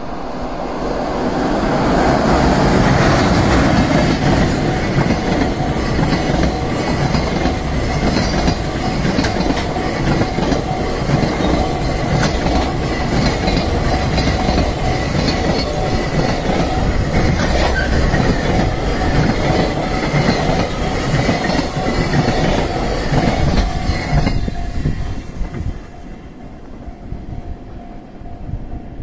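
Freight train of container wagons passing close by at speed, the wheels clattering over the rail joints. The noise builds over the first few seconds, holds, and drops away about 24 seconds in as the last wagon passes. A steady level-crossing warning bell rings throughout.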